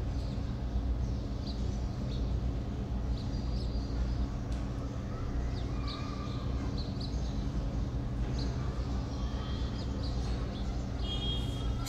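Steady low background hum with scattered short bird calls.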